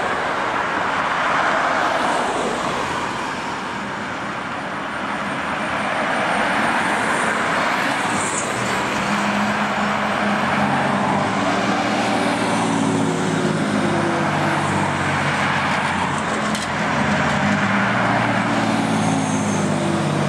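Steady road traffic noise, with a low pitched hum coming in about halfway through and continuing to the end.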